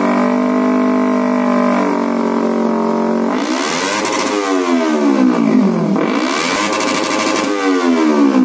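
Kawasaki Ninja 250 FI parallel-twin engine running through a Taiwanese SC Project-style aftermarket muffler, loud and held steady at first, then revved twice from about three seconds in, the pitch rising sharply and sinking back each time.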